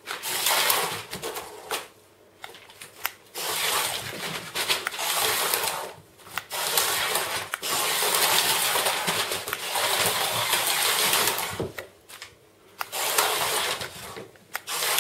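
Small battery-powered toy car whirring through the plastic tubes of a children's tube track, running in stretches of a few seconds with short breaks.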